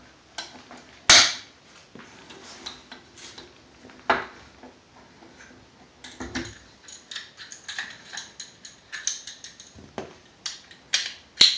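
Small metal gun parts and tools handled on a workbench: clinks and knocks, with sharp ones about a second in, about four seconds in and near the end, and a run of light quick taps between.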